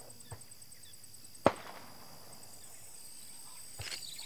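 Firecrackers going off, set by plantation workers to scare wild elephants away: one loud sharp bang about a second and a half in, a fainter pop just before it, and a couple of softer ones near the end.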